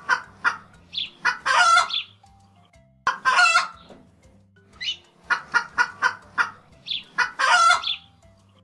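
Domestic hens clucking: runs of quick, short clucks, each ending in a longer, louder call, the same sequence heard twice.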